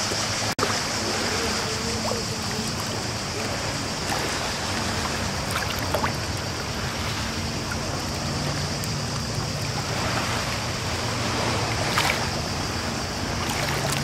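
Steady wash of calm sea water lapping and sloshing close to the microphone, with a few small splashes, over a faint low hum.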